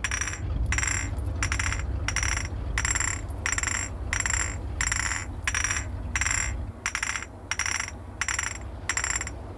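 Instrumental intro of a hip-hop beat: a short, high ringing hit repeated about twice a second over a deep, steady bass.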